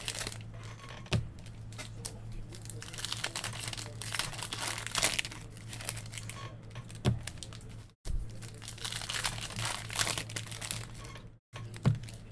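Foil wrapper of a trading-card pack crinkling and tearing as it is ripped open, with the cards rustling as they are handled. There are a few soft knocks, and a steady low hum underneath. The sound drops out briefly about eight seconds in.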